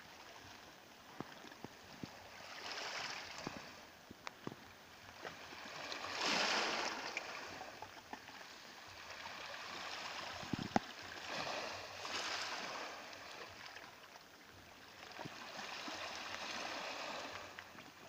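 Small waves of a calm Black Sea washing in on the shore, a soft surge of surf every three to five seconds, the biggest about six seconds in, with scattered light clicks.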